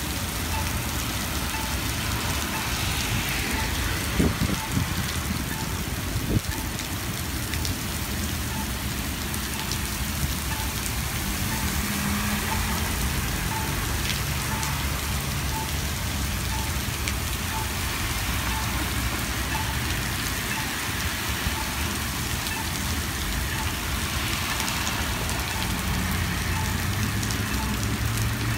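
Heavy rain pouring steadily onto pavement and street, with cars swishing through the wet road now and then. A short beep repeats about once a second throughout.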